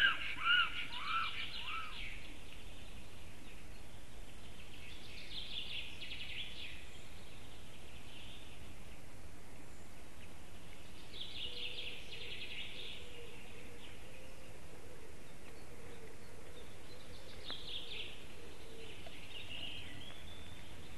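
Wild songbirds singing in three short, separate phrases over a steady outdoor hiss, after a short run of repeated calls that fades out in the first second and a half.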